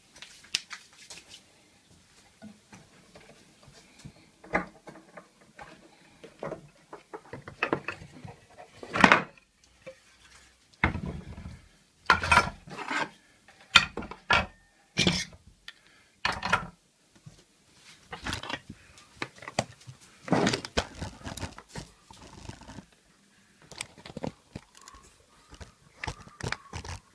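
Irregular knocks, clicks and clatters of wooden pieces and hand tools being picked up, moved and set down on a wooden workbench, the loudest ones in a cluster in the middle.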